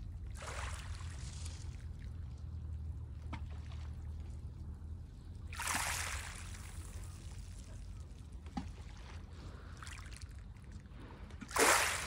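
Small, gentle waves lapping on a pebble beach: a few short hissing washes of water over the stones, the loudest near the end, with tiny clicks of pebbles. A low steady rumble runs underneath.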